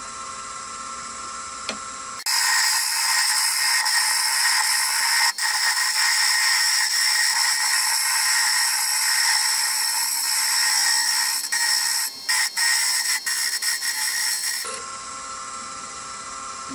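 Wood lathe running with its motor hum while a turning tool cuts the spinning spindle, a loud steady hiss of shavings starting about two seconds in, breaking off a few times near the end and then stopping.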